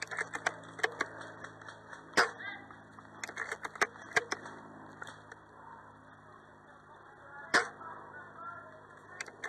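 Airsoft guns firing: sharp single cracks, the two loudest about two seconds in and near the end, with runs of quicker, fainter shots in between.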